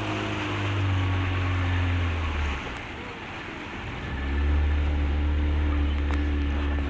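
A small engine running at a steady low pitch. It fades out about two and a half seconds in and comes back about four seconds in.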